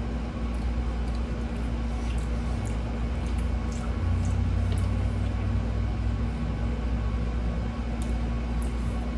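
A steady low hum throughout, with a few brief clicks of a wooden fork against the plate and soft chewing of meatloaf.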